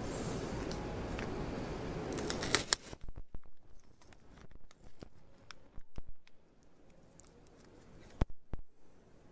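Paper-and-foil wrapper of a Hi-Chew candy stick being torn open by hand with its tear strip and peeled back: tearing and crinkling, then scattered small crackles and clicks. A steady hiss fills the first three seconds, which end in a cluster of loud crackles.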